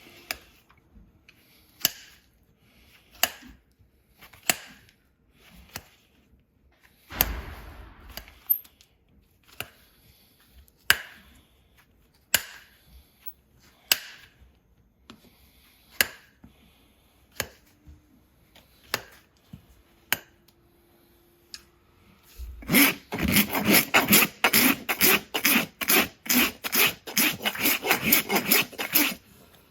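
Farrier working a horse's hoof: sharp single trimming strokes, about one every second and a half, with one longer scrape near 7 seconds. About 23 seconds in, a hoof rasp starts filing the hoof, much louder, in quick back-and-forth strokes of about four a second.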